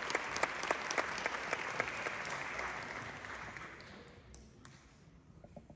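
A small audience applauding, the clapping thinning out and dying away about four seconds in.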